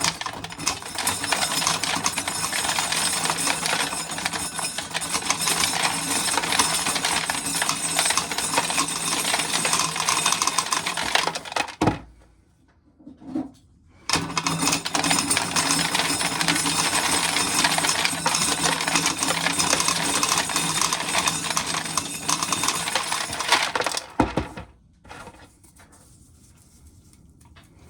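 A corn sheller stripping kernels off ears of dried corn, the kernels rattling into a metal coffee can. It runs steadily for about twelve seconds, pauses briefly while a new ear goes in, runs for about ten seconds more, then stops, leaving a few small clicks.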